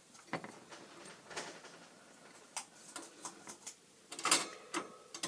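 Hamster cage being handled as the hamster is put back in: scattered clicks, knocks and light rustles, coming thicker and louder near the end.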